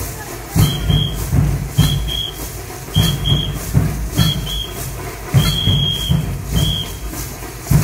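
Lezim dance rhythm: a whistle sounds in pairs of short, high blasts about every second and a bit, with one longer blast about five and a half seconds in, keeping time over a steady drum beat and the jangle of the lezims' metal jingles.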